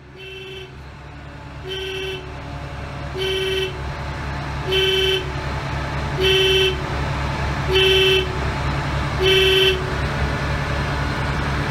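RM 90GO! mobile impact crusher's diesel engine running steadily and growing louder, while its warning horn beeps seven times, about every one and a half seconds.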